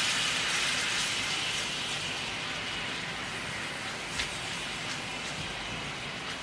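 Lemon juice and honey sizzling in a hot buttered frying pan: a steady hiss that slowly dies down, with a light tap about four seconds in.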